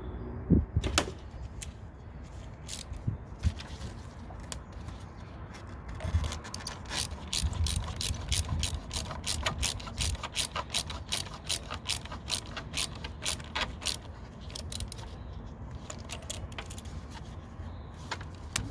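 Jubilee hose clips on the intake hose being tightened: ratcheting clicks. A few separate knocks come first, then a long run of quick, even clicks, then a few scattered ones.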